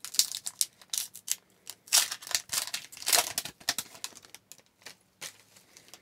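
A hockey card pack's foil wrapper crinkling and tearing as it is ripped open by hand. About three and a half seconds in, it gives way to a few lighter clicks and rustles of the cards being pulled out and handled.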